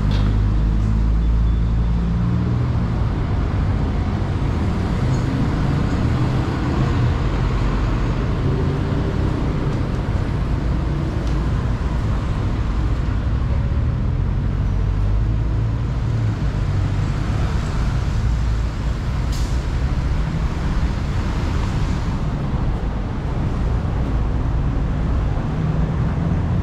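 City street traffic: car and bus engines running past in a steady low rumble with tyre noise. About three-quarters of the way through comes one brief sharp hiss.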